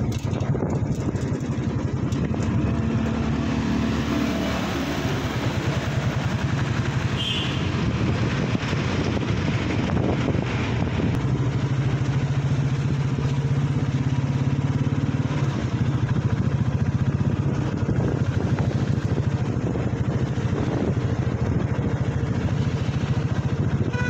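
Motorcycle engine running steadily while riding along, with a constant rush of road and wind noise.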